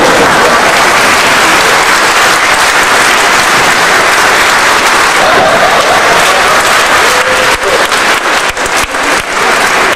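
Audience applauding, a dense steady clapping that grows patchier in the last few seconds.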